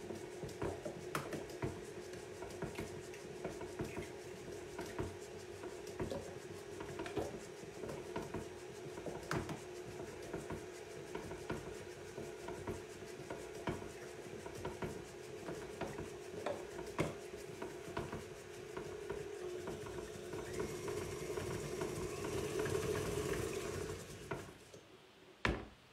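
Tilt-head stand mixer running, its paddle beating butter, sugar and vanilla as eggs are added: a steady motor hum with scattered light clicks. Near the end it runs louder and hissier for a few seconds, then is switched off.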